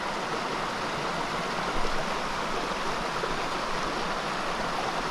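A small stream's water running steadily.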